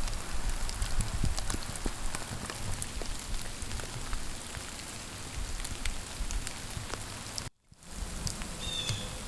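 Freezing rain pattering steadily, with many scattered sharp ticks of drops hitting surfaces. The sound cuts out completely for a moment about seven and a half seconds in.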